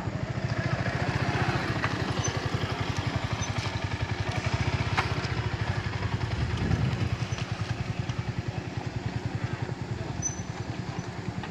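Engines running close by with a steady, fast low throb. A motorcycle revs and pulls away up the dirt road about six to seven seconds in.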